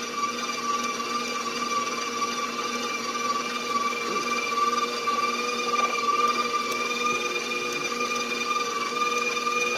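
Electric mixer running at a steady speed with an even motor whine, beating butter and sugar together for a cake batter.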